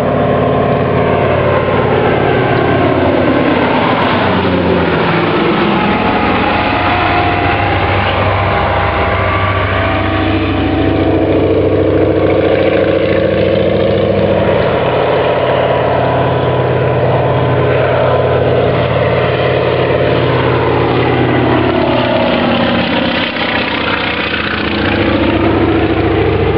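Antonov An-2 biplane's nine-cylinder radial engine and propeller droning loudly on a low pass, the pitch dropping as it goes by about four seconds in and again near the end.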